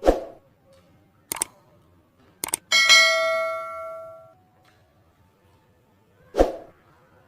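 A few sharp hits, then a bell-like metallic ring of several steady tones that fades over about a second and a half, and one more hit near the end.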